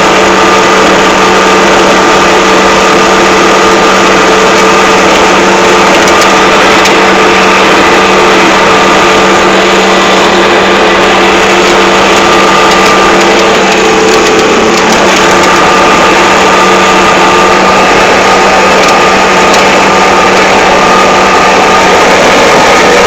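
Excavator's diesel engine running at a steady speed, a constant loud drone with a few steady tones.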